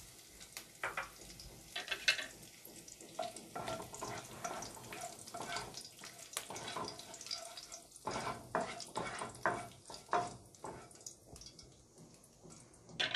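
Fresh curry leaves crackling and sizzling in hot oil in a non-stick kadai, with irregular small pops as their moisture hits the oil. A spatula stirs them around the pan.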